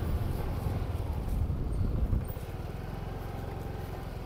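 Engine and road rumble of the vehicle carrying the camera, loud at first, easing off about two seconds in to a quieter, even engine beat.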